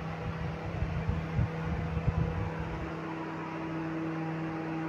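Steady mechanical hum of room tone with a few soft low knocks in the first two seconds; a second, higher steady tone joins about three seconds in.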